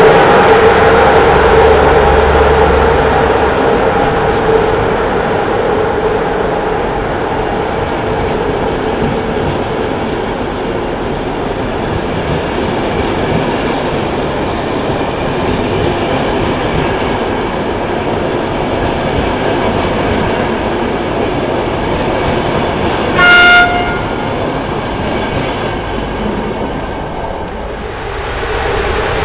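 Passenger coaches rolling past along the platform, a steady rail rumble that slowly grows fainter. About three-quarters of the way through, a locomotive horn gives one short, loud blast.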